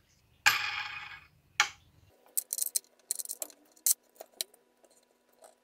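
A sharp metallic clink about half a second in that rings for about a second, followed by a second click. Then a run of small metallic clicks and scrapes as a steel wing nut is turned down a threaded stud in a wooden block.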